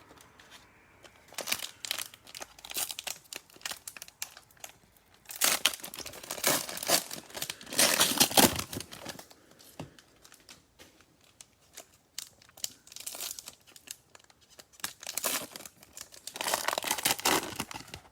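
Crinkly plastic cellophane wrapper of a trading-card pack being torn open and handled, in several bursts of crinkling with short pauses between.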